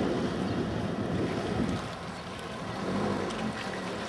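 A small boat moving across lake water: wind rushing over the microphone with water washing along the hull, easing off somewhat about halfway through.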